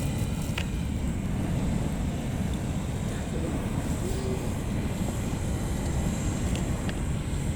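Deep, steady rumble of a boiling lava lake, heard from the crater rim. There are two faint clicks, one about half a second in and one near the end.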